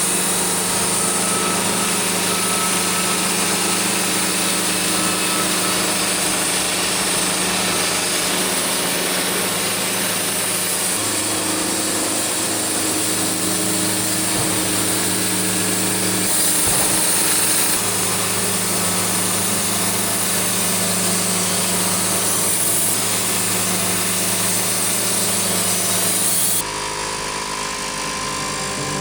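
Engine-driven saw running steadily under load while cutting wood, with a constant engine hum beneath the cutting noise. The sound drops abruptly near the end.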